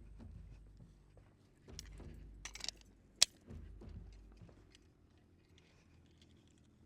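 Faint metallic clicks and rattles of a Staccato XL 9mm pistol being handled unloaded, with a short cluster of clicks and then one sharp click about three seconds in.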